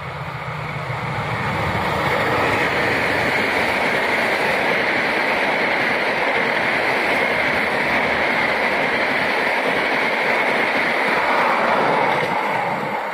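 A CC201 diesel-electric locomotive hauling a passenger train passes close at speed. The noise builds over the first couple of seconds, then holds as a steady loud rush of the coaches on the rails, and drops off near the end as the last coach goes by.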